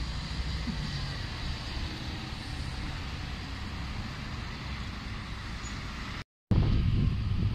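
City bus driving past without stopping and pulling away, a steady low engine rumble with road noise. The sound cuts out briefly about six seconds in, then a louder low rumble follows as another bus approaches.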